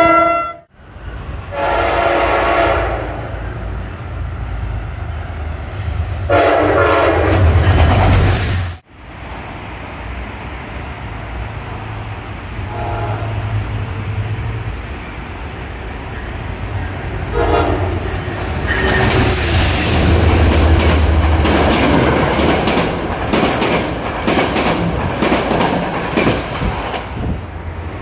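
Commuter train horn blasts: two near the start, a hard cut, then a low train rumble with a shorter horn blast about seventeen seconds in. After that comes rail clatter as the train runs.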